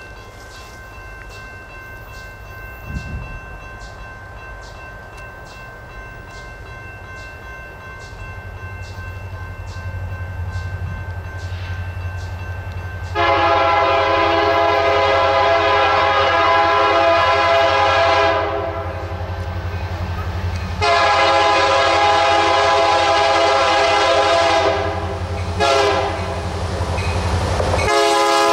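Kansas City Southern SD70MAC diesel-electric locomotive leading a freight train on the approach, its low engine and rail rumble growing louder from about a third of the way in. Its multi-chime air horn then blows long, long, short and long, the standard signal for a grade crossing, with the last long blast starting near the end.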